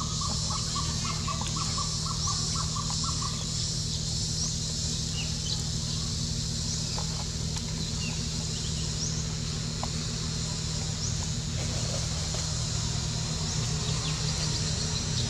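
Forest ambience: a bird calls in a quick run of repeated notes, about four a second, that stops about three seconds in. Under it run a steady high drone and a low hum, with a few short chirps later on.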